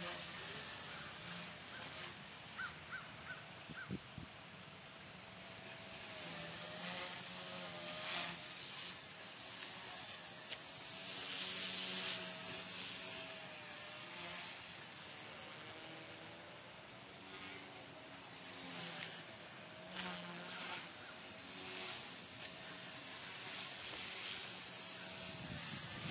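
Blade mCP X micro RC helicopter with an HP-05 brushless main motor in flight: a high, insect-like motor and rotor whine that wavers up and down in pitch as the throttle and collective change.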